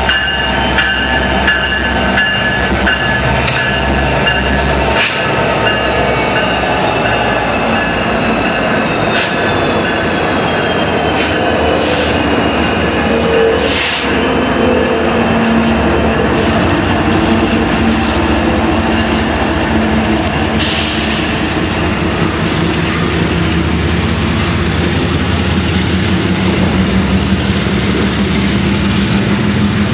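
Union Pacific double-stack freight train passing close by. Its diesel locomotives, an SD70ACe leading and SD70Ms trailing, run past, then the loaded stack cars roll by with steady wheel-on-rail rumble, thin wheel squeal and a few sharp clanks.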